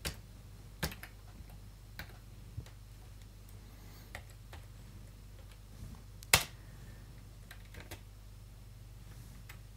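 A few scattered computer keyboard keystrokes, single sharp clicks a second or more apart, the loudest about six seconds in, over a faint steady low hum.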